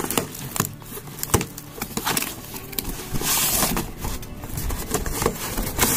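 Cardboard shipping box being pulled open by hand: the flaps rustle and scrape, with a string of sharp crinkles and knocks and a louder scraping rush a little past the middle.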